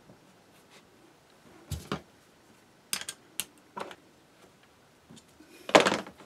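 Steel machine vise and tools handled on a workbench: separate metallic clicks and knocks as the vise is set up and tightened with a T-handle hex key, with a louder, longer clatter near the end.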